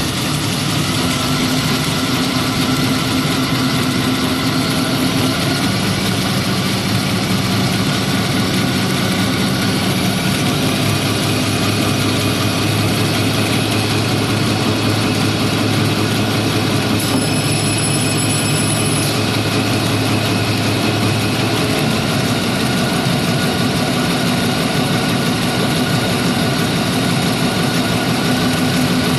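Drinking-straw production machinery running: a steady, loud mechanical noise with a motor hum whose pitch shifts every few seconds.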